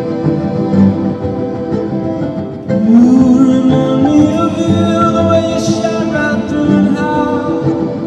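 Live music led by violin over steady sustained accompanying layers. About three seconds in it gets louder, and a melody line that slides up in pitch comes in on top.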